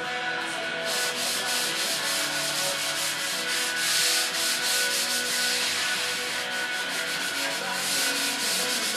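Hand sanding block rubbed back and forth over a foam surfboard blank in repeated strokes while the board is being shaped.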